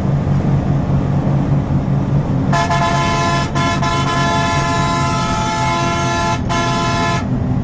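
A bus's diesel engine runs steadily at speed. From about two and a half seconds in, a loud multi-tone horn sounds for nearly five seconds, cut off briefly twice.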